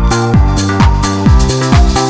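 Electronic dance music with a steady kick drum beating a little over twice a second under sustained synth notes.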